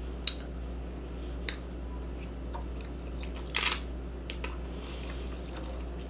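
A person eating close to the microphone: a few sharp mouth clicks, then a louder short burst about three and a half seconds in, over a steady low hum.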